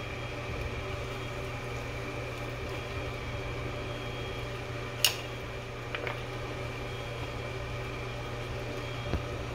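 Metal tongs clicking against a foil roasting pan as chicken pieces are turned: one sharp click about five seconds in, then a few lighter ones. Underneath, a steady mechanical hum.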